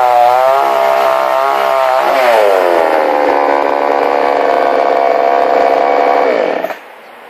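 Huter BS 52 two-stroke petrol chainsaw running at high revs, its pitch wavering. About two seconds in the throttle is released and it drops to a steady idle. Near the end the engine winds down and cuts off suddenly, switched off.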